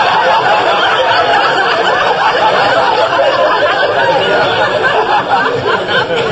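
Studio audience laughing, loud and long, dying down near the end.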